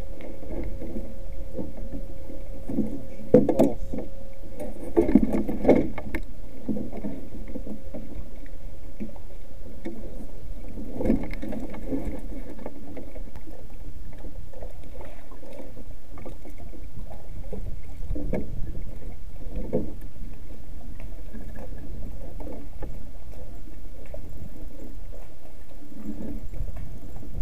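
Canoe out on open water: a steady low rumble of wind and water, with scattered knocks of the paddle and gear against the canoe's hull. The knocks come in a cluster about three to six seconds in, and again around eleven and nineteen seconds.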